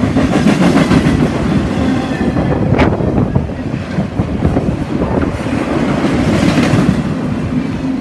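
Freight train of empty intermodal well cars rolling past close by: a steady loud rumble of steel wheels on rail with clacking over the rail joints, and one sharp clank about three seconds in.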